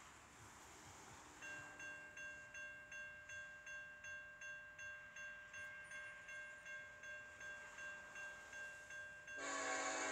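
A railroad crossing bell ringing, about two dings a second. Near the end the lead locomotive's air horn starts, a loud chord of several tones that drowns out the bell.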